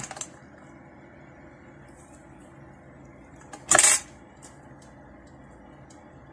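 A short clatter of small hard objects on a hard benchtop about four seconds in, with a few faint clicks around it, over a low steady background hum.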